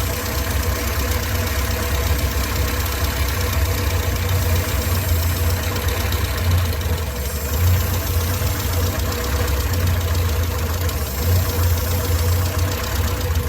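Morris Minor 1000's four-cylinder A-series engine idling steadily, its SU carburettor mixture just set to what the owner judges to be right.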